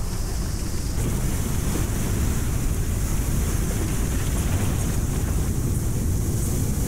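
Rough storm surf breaking, heavy and continuous, with strong wind buffeting the microphone in a low rumble.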